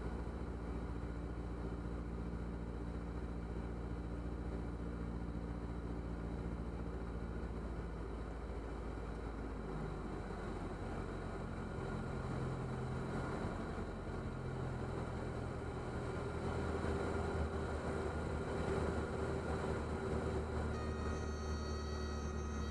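Diamond DA40's engine and propeller droning steadily in the cockpit on landing approach, the engine's pitch shifting about ten seconds in as power changes. The rushing noise grows louder toward touchdown, and a high steady tone comes in near the end.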